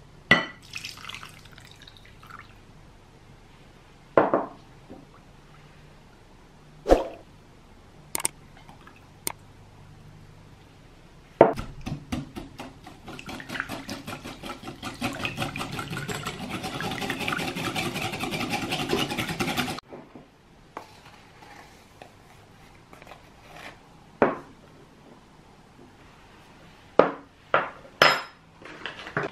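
Wire whisk beating egg and sugar in a glass mixing bowl: rapid, steady strokes clinking and scraping against the glass for about eight seconds in the middle. A few sharp knocks come before and after it.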